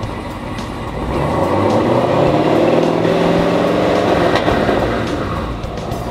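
Twin-turbocharged 6.2-litre LT4 V8 of a 2018 Camaro ZL1 through its stock quad exhaust, blipped from idle: the pitch climbs about a second in, holds for a few seconds and falls back to idle near the end.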